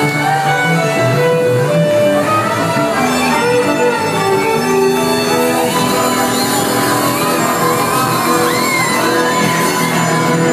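A live band playing amplified music: a fiddle carrying the melody over acoustic guitar, bass guitar and drums.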